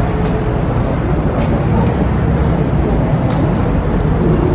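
Busy city street ambience: steady traffic noise, heaviest in the low end, with no break.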